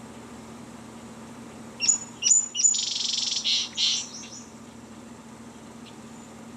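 Bird song: three quick chirps falling in pitch, then a fast trill lasting about a second and a half, over a steady low hum.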